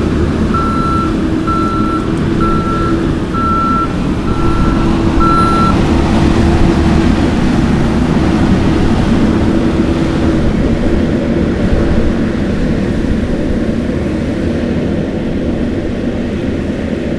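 Kioti skid steer's diesel engine running under load, with its backup alarm beeping six times, about one beep a second, during the first six seconds as the machine reverses.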